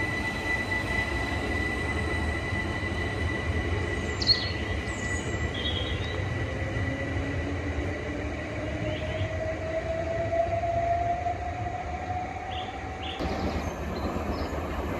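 Southeastern electric multiple-unit train running on the rails: a steady low rumble with a high steady whine, and a motor whine that rises slowly in pitch over several seconds as the train picks up speed.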